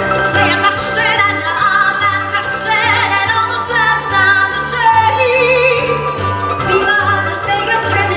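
Music with a singer's voice holding wavering notes over a pulsing bass line.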